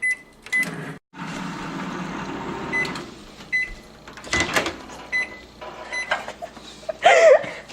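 Microwave oven in use: short keypad beeps, the oven running with a steady hum for a couple of seconds, then more single beeps. A sharp clunk comes about halfway through.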